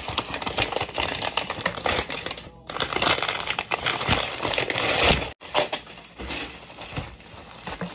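Scissors snipping through a brown paper bag, the paper rustling and crinkling as it is cut and pulled open. Later a foil-wrapped package crinkles as it is lifted out. The sound breaks off briefly twice.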